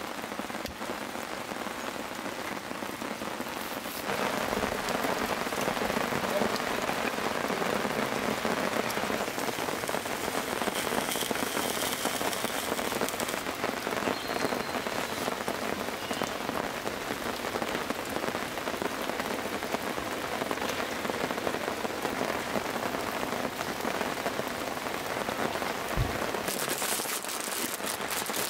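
Steady rain falling, an even hiss that gets louder about four seconds in.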